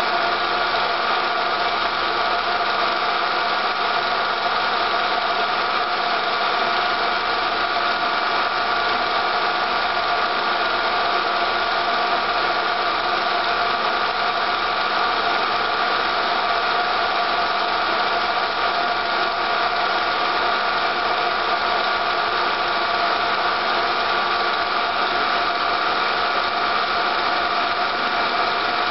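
Film projector running steadily: an even mechanical whir of motor and film transport with no change.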